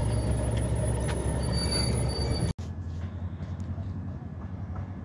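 Train running with a steady low rumble. It cuts off abruptly about halfway through and gives way to quieter background noise with a low hum.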